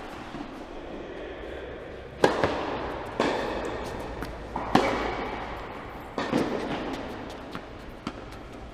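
Tennis rally in a large indoor hall: a handful of sharp racket-on-ball strikes and ball bounces, each with an echoing tail. The loudest comes about two seconds in, the others about three and five seconds in, and a quick pair just after six seconds, with fainter taps between.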